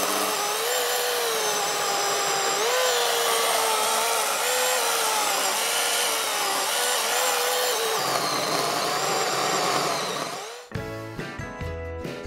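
Greenworks 40V brushless cordless chainsaw cutting through a log about 16 inches thick: a steady electric motor whine with the chain rasping through wood, its pitch wavering as the load changes. It cuts off suddenly near the end, and plucked-string music takes over.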